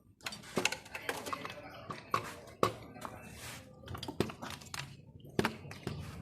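Irregular sharp metallic clicks and clinks of hand tools and engine parts being handled during an engine teardown.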